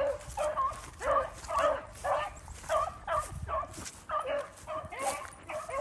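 A pack of beagles baying on a running rabbit's track, their calls overlapping and repeating a few times a second: the hounds are on the trail and the chase is on.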